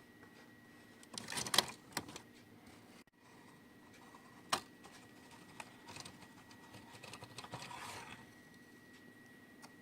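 Small handling noises: a cluster of short clicks and rattling scrapes about a second in, a sharp single click around four and a half seconds, then a softer scraping rustle near eight seconds, over a faint steady hum.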